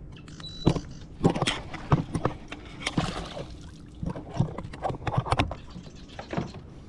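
A hooked bass splashing at the surface as it is lifted out of the water into a plastic fishing kayak, with a run of irregular knocks and clatter of rod and gear against the hull. There is a splash about three seconds in.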